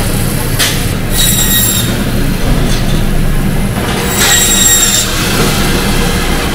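Meat band saw running with a steady hum, its blade squealing high as it cuts through a bone-in pork leg, in passes about a second in and again about four seconds in.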